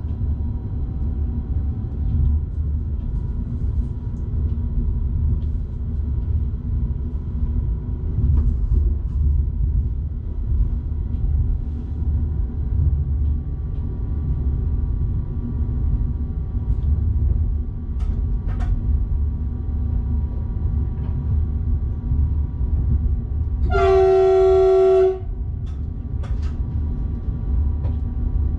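Train running with a steady low rumble, heard from the driver's cab. About 24 seconds in, the train horn sounds one short, steady blast lasting about a second.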